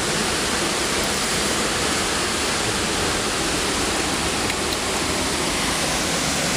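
Steady, unbroken rush of Mooney Falls, a tall waterfall, heard close by.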